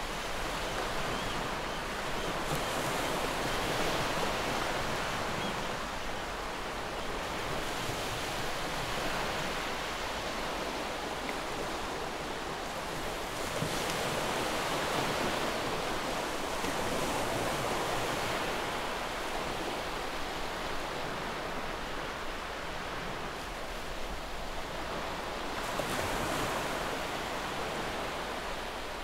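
Ocean surf ambience used as background sound: a steady wash of noise swelling and ebbing every four or five seconds.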